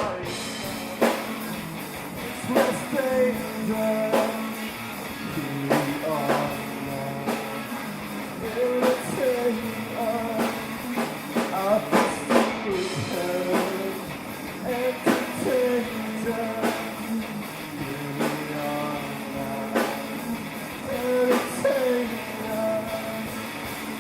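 Live rock band performance: singing over guitar and drum kit.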